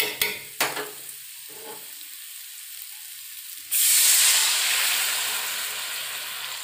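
Pork frying in a hot metal wok, with a few scrapes of a steel spatula against the pan. About three and a half seconds in, water poured into the hot wok sets off a sudden loud sizzle that slowly dies down as the liquid covers the meat.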